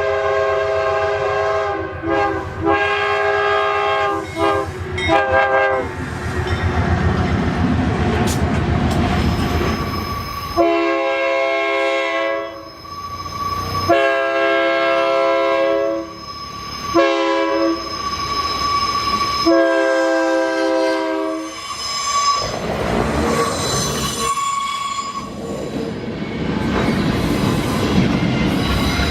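A string of train horn blasts, each sounding several notes at once. A few short toots come first, then four long blasts from about ten seconds in. The rumble and clatter of a passing train fills the gaps, and again near the end.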